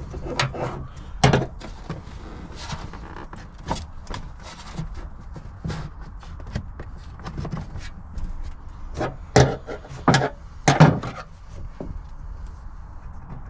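Irregular clicks and knocks of hands and tools working loose a car's fuel return line connection, with three sharper knocks near the end.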